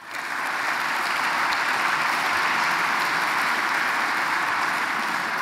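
Audience applause filling a hall, a dense steady clapping that swells in quickly at the start and holds through.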